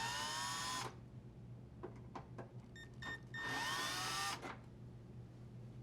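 Drill driver running twice briefly, a bit over a second each time, unthreading the two hinge screws. Its motor whine rises as it spins up. A few small clicks come between the two runs.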